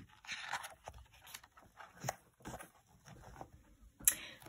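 A picture-book page turned by hand: a short paper rustle and slide, followed by a few light taps and soft rustles as the book is handled.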